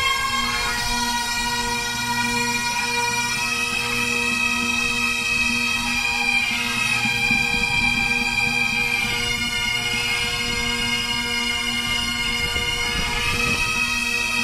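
A massed band of Great Highland bagpipes playing a tune, the chanters' melody moving over steady, unbroken drones.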